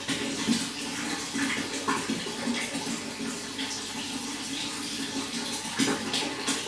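Running water flowing steadily, with many small irregular splashes and gurgles.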